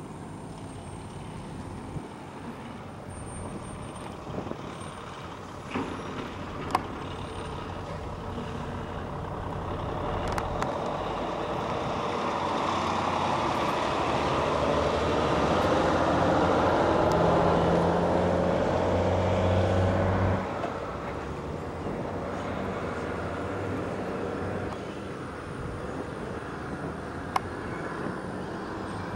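A heavy engine running with a low, steady hum, growing louder over several seconds to a peak and then dropping away suddenly. A few sharp clicks stand out.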